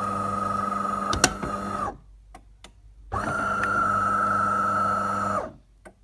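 De'Longhi Magnifica Start bean-to-cup coffee machine running with a steady hum. It stops about two seconds in with a few clicks, runs again for about two more seconds, then stops, and a click follows.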